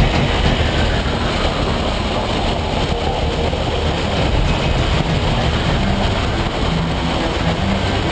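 Honda ST1300 V4 touring motorcycle at highway speed: steady wind rush over the camera mount mixed with engine and tyre noise.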